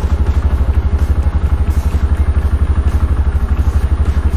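Rusi Sigma 250 motorcycle engine idling steadily, with an even, rapid low exhaust pulse.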